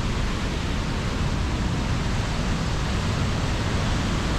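Steady rushing noise of the Reekie Linn waterfall in full spate, the River Isla swollen by heavy storm rain.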